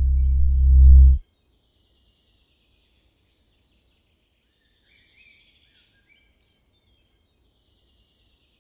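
A loud, low, buzzy soundtrack drone swells slightly and cuts off abruptly about a second in. Faint birds chirp through the rest.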